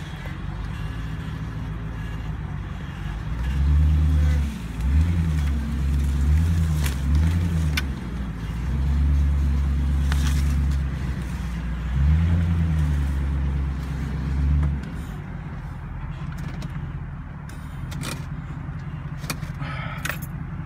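Land Rover Discovery 2's engine, heard from inside the cabin, rising and falling in pitch several times as throttle is fed over rough wet ground, with a few sharp knocks. After about fifteen seconds it settles to a quieter steady run.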